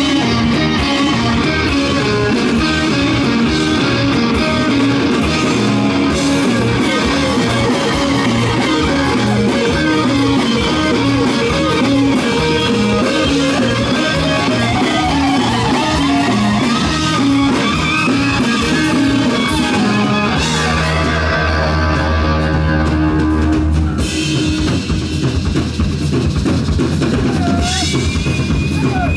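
A live rock band playing: electric guitars over bass guitar and a drum kit. The drums keep a steady rhythm, the guitar lines slide and bend in pitch, and about twenty seconds in the band settles on a long held low note.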